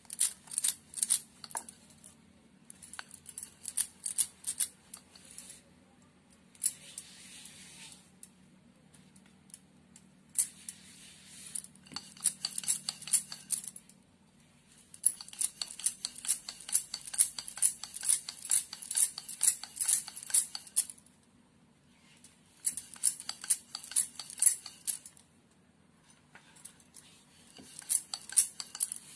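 Bangles clinking and jingling in quick spells, with short pauses, as a wooden rolling pin is pushed back and forth over paratha dough on a marble rolling board.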